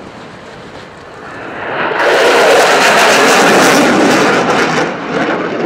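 F-16 fighter jet's engine roaring in a fast, low pass, swelling to a loud peak with a crackling edge for a couple of seconds, then easing off as it goes by.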